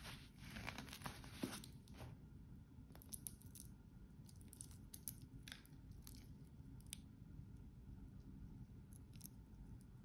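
Faint handling noise of a stainless steel watch: a rustle with one sharp knock in the first two seconds as the watch is pulled off its padded cushion, then scattered light clicks of the steel bracelet links and folding clasp being handled.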